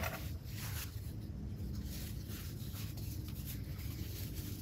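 Soft rubbing and rustling of a sewn cloth pad being handled and smoothed between the fingers, over a steady low hum.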